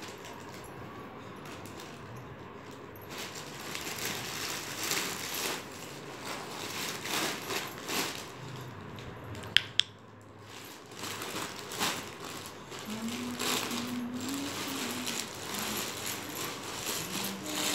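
Irregular rustling and scraping as a toddler's hands grab at grapes on a bedsheet, with two sharp clicks just before the middle. Later a short hummed voice wavers up and down, twice.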